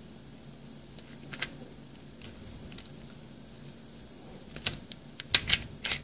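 Plastic pieces of a 2-Layers Star Super Square twisty puzzle clicking as its layers are turned. There are a few scattered clicks at first, then a quick flurry of louder clacks near the end.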